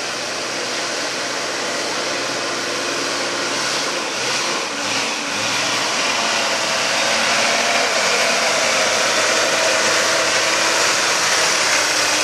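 Toyota LandCruiser troop carrier's engine running at low speed, crawling along a muddy track. The engine note shifts about four to five seconds in, and the sound grows a little louder toward the end as the vehicle comes closer.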